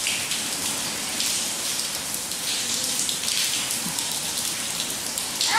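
Rain falling steadily: an even hiss of drops.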